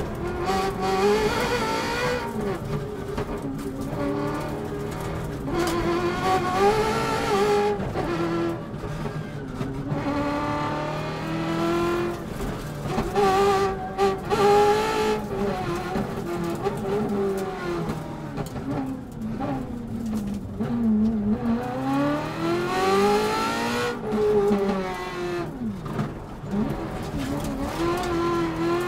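Ferrari V8 engine of a Subaru rally car at full stage pace, revving hard with its pitch climbing and then dropping at each gear change. It comes off the throttle into a long dip about two-thirds through, then winds back up.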